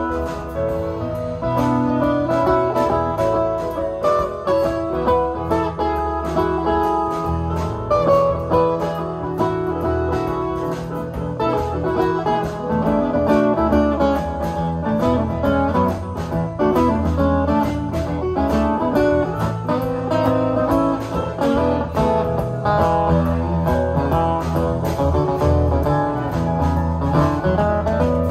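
Live band playing an instrumental passage without vocals: guitars over electric bass, drum kit and keyboard.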